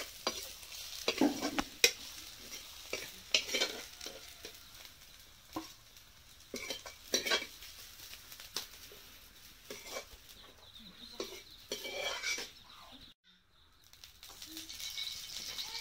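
A metal spatula scraping and clattering in a metal wok as onions, green chillies and dried fish are stir-fried, with a light sizzle of frying underneath. Near the end a hiss rises.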